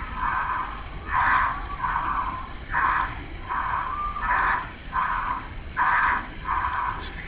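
Quick, rhythmic breathing of a stratospheric skydiver in freefall inside his pressure-suit helmet, heard over a thin radio link. Each breath is a short rush of air, a little more than one a second, in an even rhythm.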